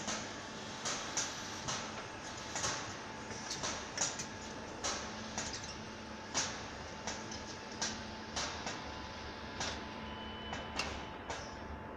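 Car assembly plant floor: a steady machinery hum with frequent, irregular sharp clicks and clanks, and a brief high beep near the end.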